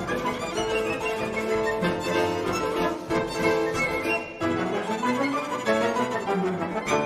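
Instrumental background music score, a violin playing a busy melody over other bowed strings.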